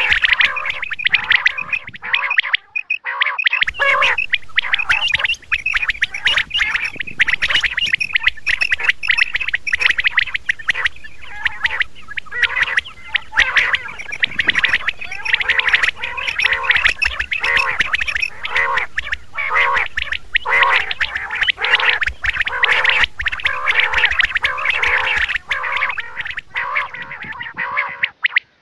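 Quail calling over and over in a dense, continuous run of sharp repeated calls, broken by a brief pause about three seconds in.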